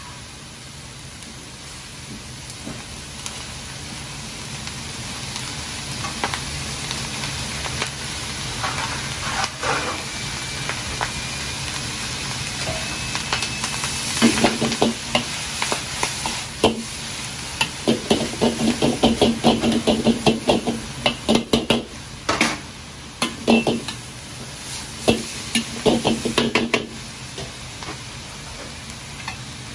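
Stir-fry of pork and vegetables sizzling steadily in a large iron wok over a gas burner. From about halfway, a metal ladle scrapes and knocks against the wok in quick runs as shredded white leek is tossed in with the rest.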